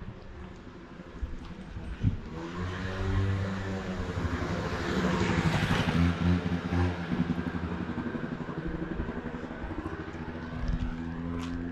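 A motor vehicle's engine passing by, building up about two seconds in, loudest around the middle, then fading away.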